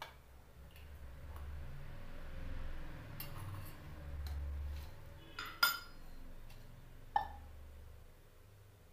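Metal kitchen vessels and utensils being handled on a counter: scattered light clicks and knocks, with a loud ringing clink about five and a half seconds in and a second clink about seven seconds in.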